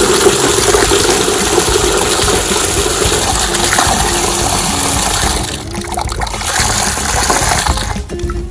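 Running water gushing steadily into empty animal drinking containers as they are filled. The flow dips briefly about six seconds in, runs again, then stops near the end.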